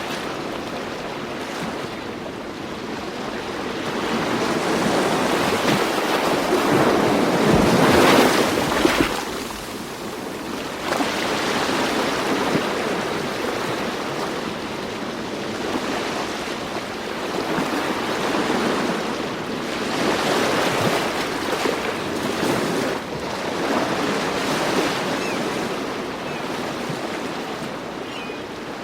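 Ocean waves breaking and washing ashore, the surf swelling and falling back every few seconds, with the biggest wave about eight seconds in.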